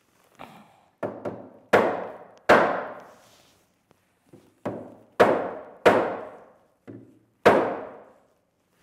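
Mallet knocking a wooden block on a workbench leg: about a dozen uneven blows, light taps mixed with five heavy thunks, each heavy blow ringing out briefly.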